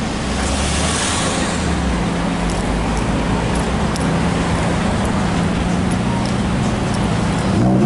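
McLaren 570S twin-turbo V8 running steadily at low revs as the car creeps by, over street traffic noise.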